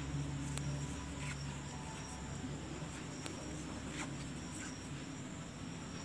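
A few soft, faint clicks from a crochet hook and yarn being worked, over a steady high-pitched background whine and a low hum that fades about a second in.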